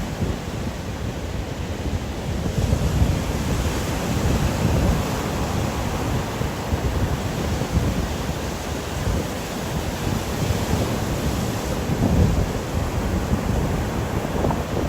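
Steady wash of ocean surf mixed with wind, with wind buffeting the microphone as a low rumble; the noise swells and eases slowly.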